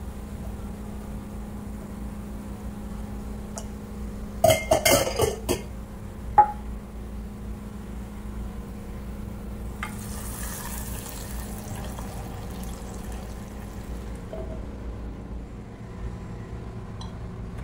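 Metal clattering of a spoon and pan in a quick run of knocks, then a hissing sizzle as hot oil with fried garlic and dried red chillies is tipped into a pot of cooked masoor dal, the tempering (tadka) step. A steady low hum runs underneath.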